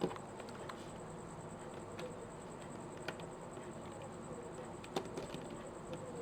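Plastic pieces of a 5x5 puzzle cube clicking as they are fitted into place by hand during reassembly: a few sharp clicks, one at the start, one about three seconds in and one about five seconds in, with smaller taps between, over a faint steady hiss.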